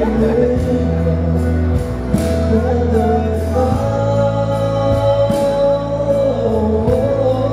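Male pop singer singing live into a handheld microphone over a backing track, holding a long note through the middle.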